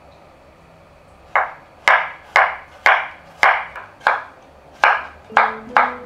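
Kitchen knife slicing garlic cloves on a wooden cutting board: a run of sharp chops, about two a second, starting about a second and a half in.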